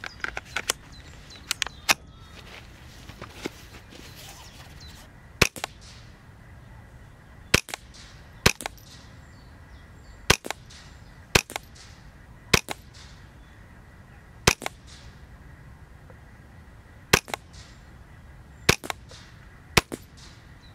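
Moderated Smith & Wesson M&P 15-22 semi-automatic .22 LR rifle firing a string of about ten sharp, cracking shots, one every one to two seconds, with a few lighter clicks in the first two seconds.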